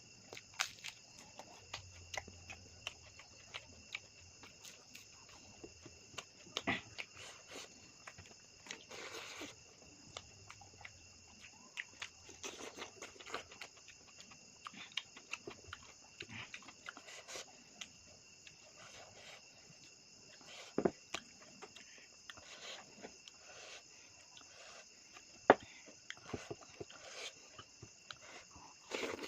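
Eating sounds: irregular wet clicks and smacks of chewing, with louder single knocks about 21 and 25.5 seconds in. Behind them, insects chirr steadily at a high pitch.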